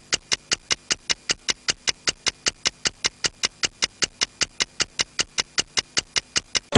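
Rapid, even mechanical ticking, about five sharp ticks a second, like a sped-up clock sound effect.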